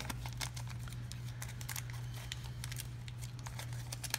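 Baseball cards being handled and flipped through: soft, irregular clicks and rustles of card stock, over a steady low hum.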